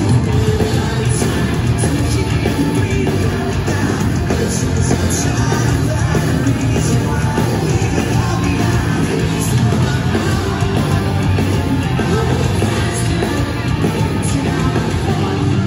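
Pop-punk band playing live and loud: electric guitars, bass guitar and drums, with the lead singer singing into a microphone.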